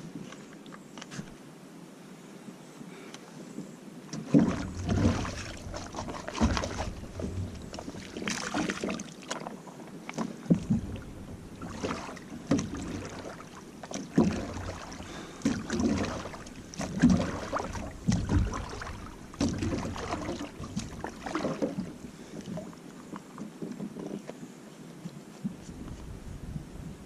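Water splashing and sloshing beside a canoe, with knocks against the hull, in irregular bursts about once a second after a quiet first few seconds, as a soft water-filter bottle is dipped into the lake and filled.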